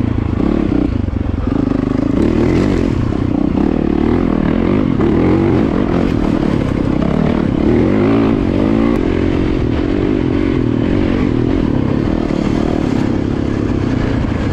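Yamaha dirt bike engine running while riding a dirt trail, its pitch rising and falling as the throttle is opened and eased.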